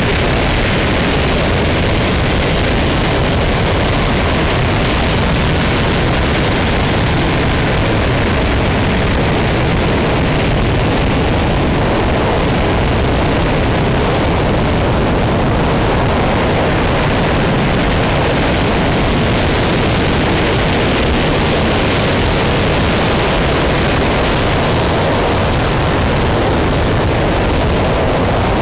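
RS-25 liquid-hydrogen/liquid-oxygen rocket engine firing in a sustained hot-fire test: loud, steady rocket exhaust noise that holds an even level.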